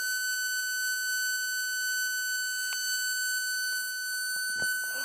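Homemade paper ceiling fan running with a steady high-pitched whistle.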